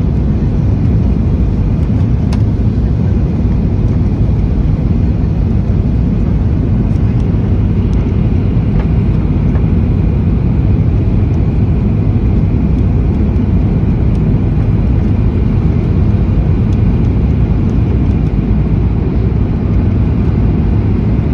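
Steady, loud cabin roar of a jet airliner descending on approach with flaps extended: engine and airflow noise heard from inside the cabin, heaviest in the low end.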